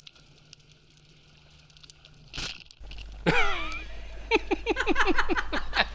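A speargun fires with a sharp snap about two and a half seconds in. Laughter follows: a falling whoop, then a rhythmic run of ha-ha-ha.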